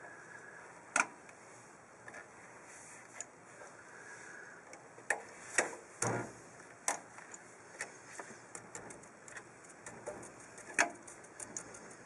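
Light metallic clicks and taps from handling and fitting pad retainer pins and clips on a Toyota Tacoma's disc brake caliper: a single sharp click about a second in, a few louder knocks around the middle, then a run of small quick ticks near the end.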